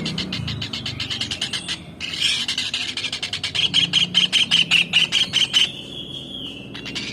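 Kingfisher (tengkek udang) calling: a fast run of shrill, high-pitched notes that turns into one held, slightly falling note near the end, before the rapid notes start again.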